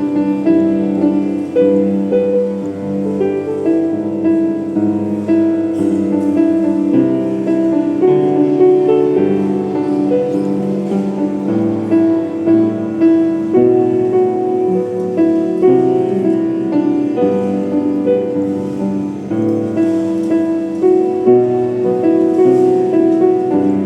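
Solo piano playing a melody over chords, an instrumental cover of a Thai pop song.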